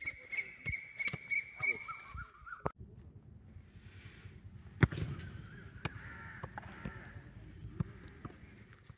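A high, steady whistle-like tone for the first two and a half seconds, then a single sharp thud of a football being kicked on a grass field about five seconds in.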